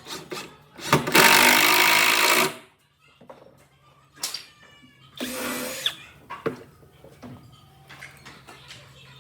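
A handheld power tool run in two short bursts, the first about a second in and lasting about a second and a half, the second shorter about five seconds in, with sharp clicks and knocks of work on wood between them.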